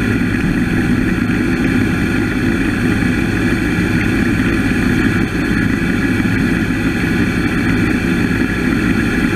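Woodmizer LT15 Go portable band sawmill running steadily and loudly, its engine and band saw blade going together with a constant, even tone.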